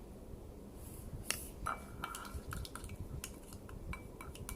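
A utensil clicking and scraping against a container while stirring a clumping mix of Air Wick gel and baking soda for slime. The mix is quiet for about a second, then gives many small irregular clicks and a few short clinks.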